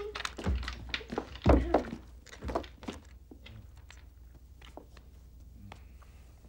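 Three dull thumps, as of bodies bumping against a door, the loudest about a second and a half in, then only faint clicks and rustles.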